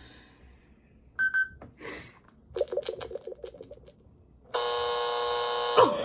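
Electronic lie detector game toy: a short beep, then a quick run of pulsing beeps as it reads, ending in a long flat buzzer tone that signals a lie verdict.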